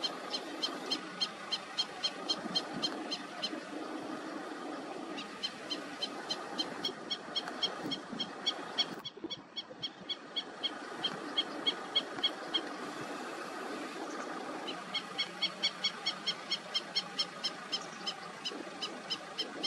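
An animal calling outdoors with a rapid, evenly repeated high-pitched note, several a second, in runs of a few seconds separated by short pauses, over a faint outdoor background.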